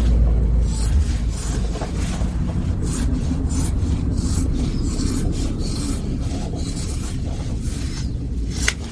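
Repeated rasping, rubbing strokes on wetsuit neoprene during a repair, over a steady low hum, with one sharp click near the end.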